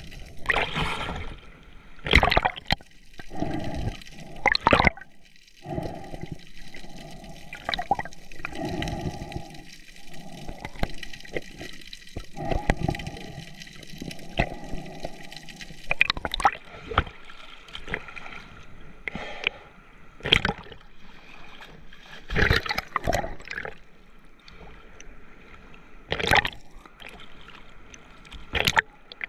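Seawater splashing and gurgling right at the microphone in choppy surf, with irregular sharp splashes every few seconds.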